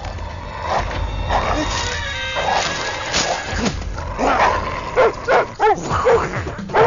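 A dog barking in a quick run of short barks, starting about five seconds in.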